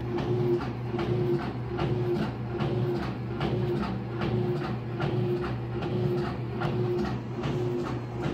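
Pulsatile heart pump running, driving fluid through a silicone heart phantom: a steady rhythm of mechanical clicks, about three a second, over a low hum with a tone that pulses in time.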